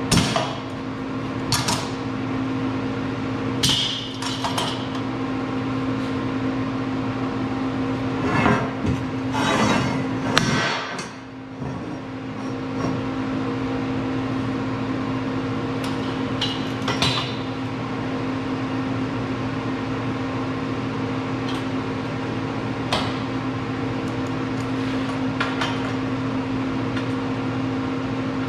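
A steady machine hum with scattered sharp metallic knocks and clanks, several close together in the first half.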